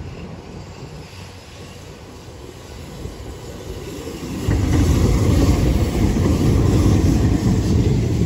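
Hiroshima Electric Railway 1000-series Green Mover LEX low-floor tram approaching on its track and passing close by. Its low running sound grows suddenly louder about halfway through as the tram comes alongside.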